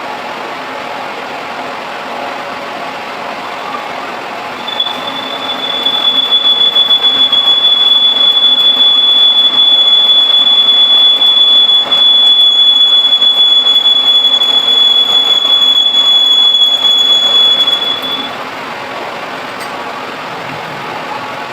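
Manual lathe running while cutting a thread. From about five seconds in, a loud, steady high-pitched squeal of the tool in the cut lasts about thirteen seconds, then stops, leaving the lathe's running noise.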